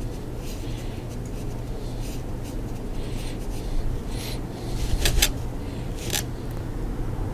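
Stiff paintbrush scraping and dabbing thick wood filler onto a board in short scratchy strokes, with a few sharp clicks about five and six seconds in.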